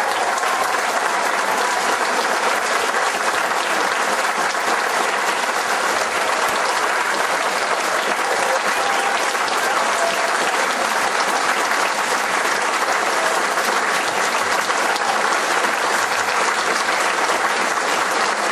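An audience applauding: many hands clapping at once in a steady, dense patter that holds at the same level without a break.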